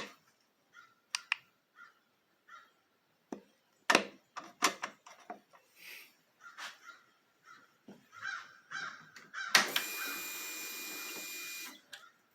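Scattered clicks and knocks, then about two seconds of harsh buzzing near the end as the Harley's starter is hit: the starter solenoid chattering without turning the Twin Cam 103 over. It is the sign of too little current from the compact jump starter through a poor clamp bite.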